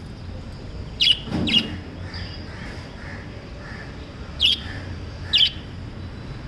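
Small pet parrots giving four short, high calls in two pairs, over a steady background hiss.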